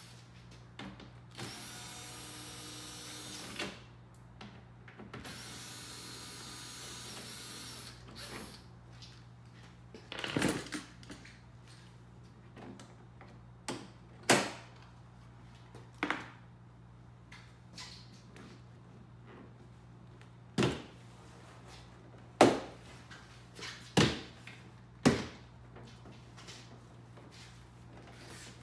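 Cordless drill/driver running in two steady bursts of a few seconds each, backing screws out of the plastic third-brake-light cover and tailgate trim panel. Then a series of sharp clicks and knocks as the plastic trim is worked loose by hand.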